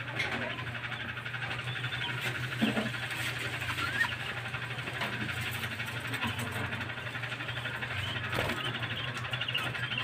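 A flock of budgerigars chattering and warbling continuously, over a steady low hum, with a few brief knocks.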